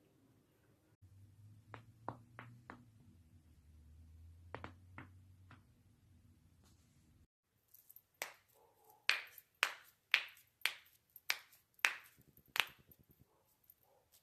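Human joints cracking. First come a few faint pops over a low hum. After a cut, a run of about ten loud, sharp cracks follows, about half a second apart.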